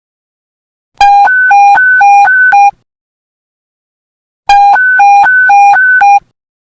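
Police panic-button alert tone: an electronic beep switching back and forth between a low and a high pitch about four times a second. It comes in two loud bursts of under two seconds each, with silence between them.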